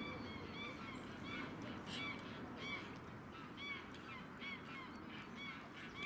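Canada geese honking: many short, overlapping calls from several birds, about three a second, loudest around two seconds in.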